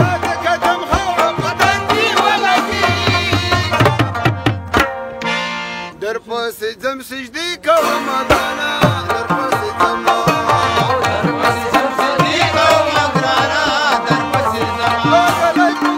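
A man singing a Pashto ghazal with rubab and hand-drum accompaniment. About five seconds in, the drum drops out for a few seconds while the voice holds a long note and then runs through quick ornaments; after that the beat returns.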